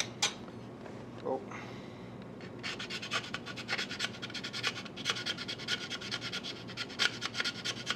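Rapid, repeated scraping strokes of a small hand tool shaving plastic from the edge of a model locomotive's plastic body shell, starting about three seconds in.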